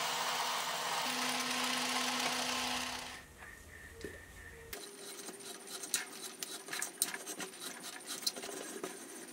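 Metal lathe running while a twist drill in the tailstock chuck drills into the end of the arbor, a steady whir with a low hum. After about three seconds it gives way to faint clicks and scraping as a tap in a hand tap wrench is turned to thread the drilled hole.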